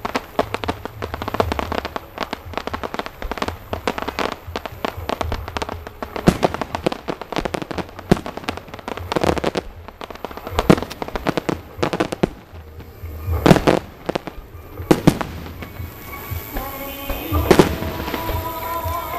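Aerial firework shells bursting in quick succession: a dense run of bangs and crackling, with a few single bangs louder than the rest.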